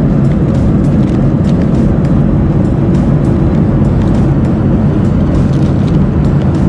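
Steady, loud drone of an airliner cabin in flight, engine and airflow noise. Light clicks and crinkles of plastic packaging are handled over it.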